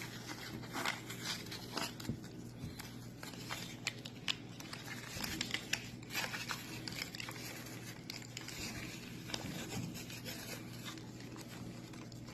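Duct tape being pulled off the roll and wrapped around a cardboard tube: irregular crackling and short rips of the tape, with rubbing and handling of the cardboard.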